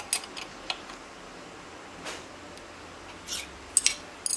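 Steel spanner wrenches clinking against a table router's collet nut and metal insert plate as the collet is tightened and the wrenches are set down: a string of sharp metallic clicks, the loudest near the end.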